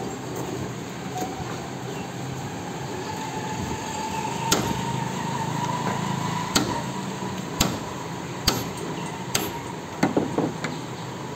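Hammer blows, five strikes about a second apart and then a quick flurry of lighter knocks near the end, over a steady background hum.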